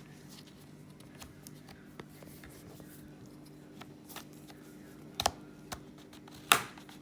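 Plastic snap-fit clips of an HP Pavilion x360 laptop's screen bezel clacking loose as the bezel is pried off with a guitar pick: faint ticks and scraping, then sharp clacks about five seconds in and again near the end, the last one the loudest.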